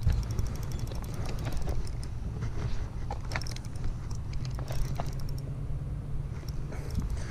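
Spinning reel on a light fishing rod giving off scattered clicks and ticks as it is worked while playing a fish, over a steady low rumble.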